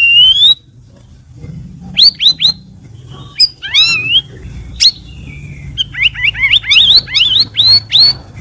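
Cucak rawis bulbul singing: clear whistled notes sweeping up and down, with short pauses, then from about six seconds a quick run of rising whistles.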